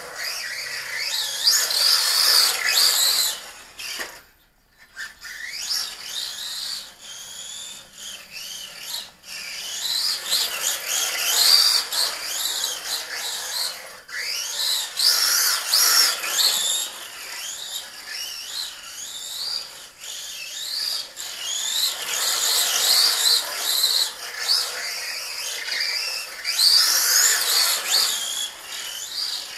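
Brushless electric motor of a 1/14-scale RC short course truck (a 5900kv motor on a 2s LiPo) whining, its pitch rising and falling again and again with the throttle, with gear and tyre noise underneath. It drops almost to silence for about a second, about four seconds in.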